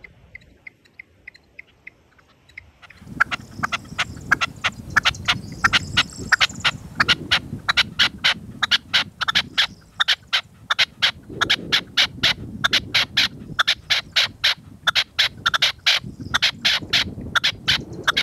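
Caged red-legged partridge decoy calling a fast, even run of sharp chuck notes, about four to five a second, loud from about three seconds in. Gusty wind rumbles on the microphone underneath.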